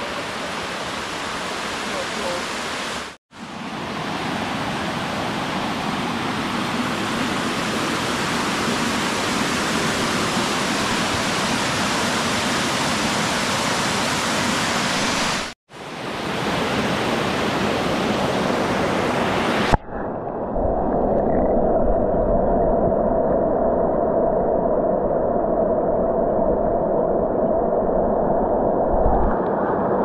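Water of a woodland brook cascading over rocks in small waterfalls, a steady full rush, broken by two brief cuts. About twenty seconds in it changes abruptly to a dull, muffled rumble of the water heard from underwater, with all the high end gone.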